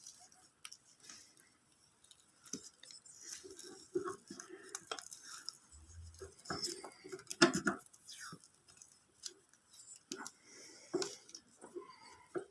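Faint, irregular clicks, taps and rustles of hands working insulating tape around a motorcycle's wiring connector.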